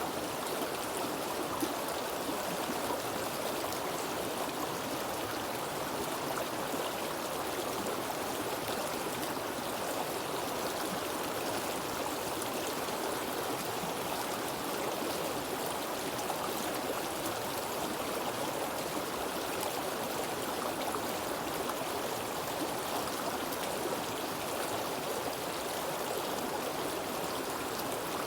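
Flowing stream water, a steady rushing and babbling.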